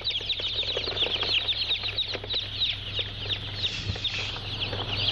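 A large crowd of newly hatched chicks peeping continuously, many short, high, falling cheeps overlapping one another.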